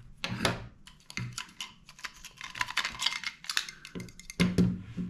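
Many quick clicks and rattles of hard plastic being handled: the battery cassette being pulled out of an LED hand flare's plastic body, its end cap already off.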